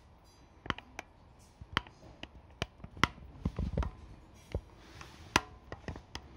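A series of irregular sharp clicks and light taps, about fifteen over a few seconds, with a short cluster of duller knocks in the middle.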